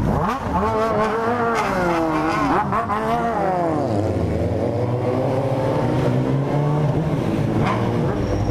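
Motorcycle engine accelerating hard, its pitch climbing with drops at gear changes about one and two and a half seconds in. It then eases off and runs at a steady cruising note.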